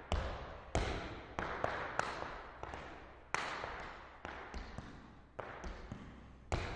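Irish dance hard shoes striking a hard floor: about a dozen sharp, irregularly spaced clacks, each with a reverberant tail that dies away. The strongest come at the start, about a second in, near the middle and near the end.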